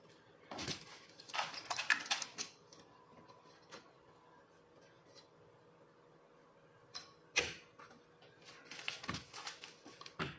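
Irregular clicks and light knocks of small tools and metal parts being handled on a workbench, in two clusters: one from about half a second to two and a half seconds in, the other from about seven seconds to near the end.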